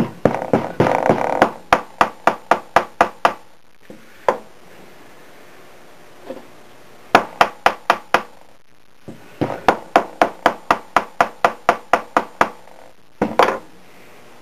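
Rawhide mallet striking a deformed strip of 16-gauge German silver on a small metal anvil to flatten it. The strikes come in quick runs of about four a second, with short pauses between the runs.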